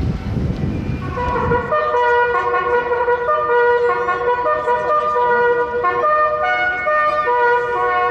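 Brass-led music plays held chords that step from one to the next every half second or so. A low rumble of wind on the microphone fades out in the first second and a half.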